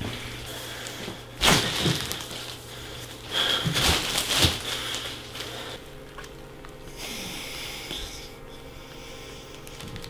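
A person breathing hard through the nose: a few short, loud breaths in the first half, over a low steady hum.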